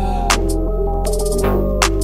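Background electronic music with a heavy bass and a steady beat.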